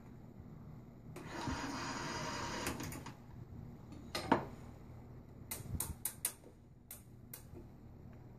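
Elcometer 4340 motorized film applicator being set back to its starting position: a sliding, hissing scrape of about a second and a half, then one sharp metallic click, then a quick run of lighter clicks and clacks from the casting knife, push bar and control buttons.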